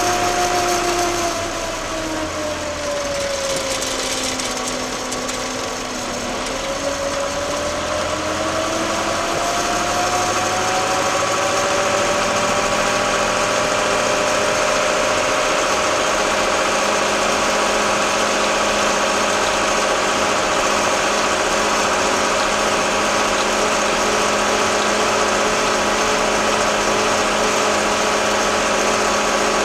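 Case 885XL tractor's four-cylinder diesel engine running while driving. Its pitch and loudness drop over the first few seconds as it slows, then climb back by about ten seconds in and hold steady.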